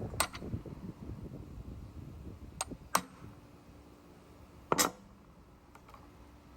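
A few sharp metal clinks and knocks, like steel parts or tools being handled, the loudest a quick double knock about five seconds in, over a faint steady hum.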